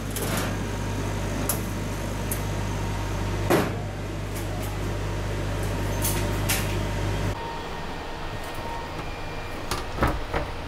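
Steady low hum of the laser cutter's fans running under clicks and knocks of acrylic panels being handled and the lid closing, the loudest knock about three and a half seconds in. The hum cuts off about seven seconds in, and a couple of light knocks follow as an acrylic panel is fitted against an aluminium-extrusion frame.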